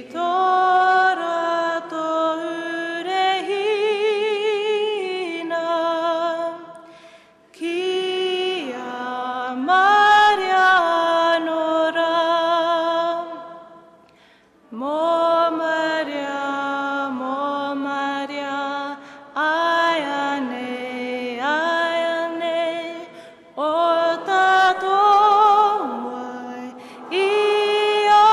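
A woman's solo voice singing unaccompanied in slow phrases of long held notes with vibrato. There are short breaths between phrases, about seven seconds in and again halfway through.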